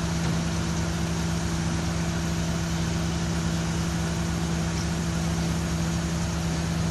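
A vehicle engine running steadily: an even low hum with a constant droning tone.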